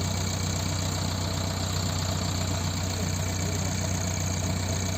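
Diesel engine of a JCB 3DX backhoe loader running steadily at a low, even speed with a deep hum.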